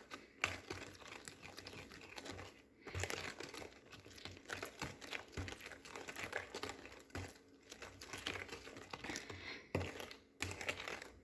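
Spoon stirring a thick mixture of condensed milk and sugar in a bowl, with irregular gritty scraping strokes and a soft knock against the bowl about once a second. The grittiness is undissolved sugar still rolling around in the half-cooked mixture.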